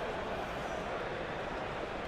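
Steady background din of a busy convention hall: an even murmur with no single sound standing out.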